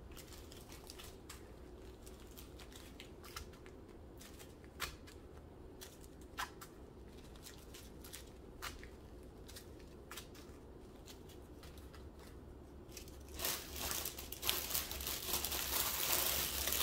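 Small plastic zip bags of acrylic diamond-painting drills being handled and set down one by one: faint scattered clicks and light rustling, then louder plastic crinkling from about thirteen seconds in.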